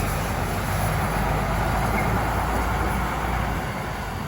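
Narrow-gauge heritage railway train running: a steady rumble that starts to fade near the end.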